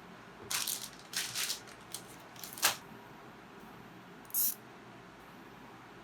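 A handful of short clinks and rattles, like small hard objects being handled, with the sharpest and loudest one about two and a half seconds in and one last one near four and a half seconds.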